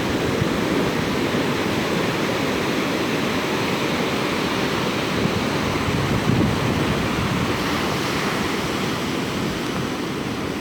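Atlantic Ocean surf breaking and washing in steadily, with wind buffeting the phone's microphone.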